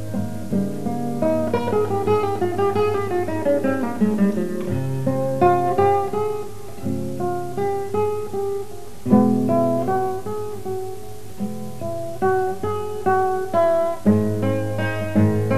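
Instrumental background music on acoustic guitar: a melody of plucked notes over bass notes, with a run of falling notes about a second in.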